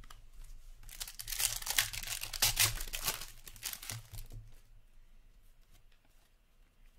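Plastic hockey card pack wrapper being torn open and crinkled by hand: a crackly rustling that starts about a second in, is loudest over the next couple of seconds, and dies away about halfway through.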